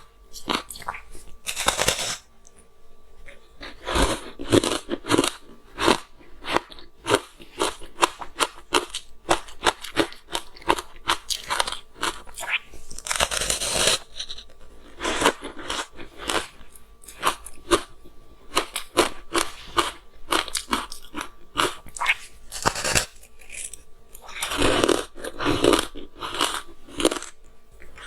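Close-miked crunching and chewing of frozen matcha green tea ice: sharp crunches as pieces are bitten, then a dense run of crackling as they are chewed, with several louder bursts of crunching.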